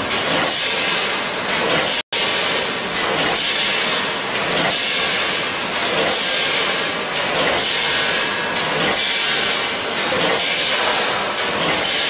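Automatic snack packaging machine running, a multihead weigher feeding a vertical bagging machine: a loud, steady hissing machine noise that swells regularly about once a second. The sound cuts out for a moment about two seconds in.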